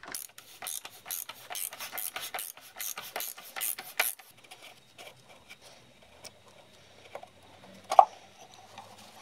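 Quick rasping, clicking strokes, several a second for about four seconds, as the oil filter housing cap on a BMW M54 engine is worked loose. After that come fainter rubbing sounds and a single sharp knock about eight seconds in.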